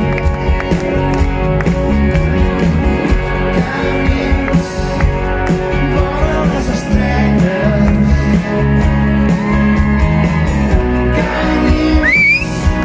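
Live rock band playing with a lead singer: electric and acoustic guitars, bass and drums, heard from the audience. A short rising slide rings out near the end.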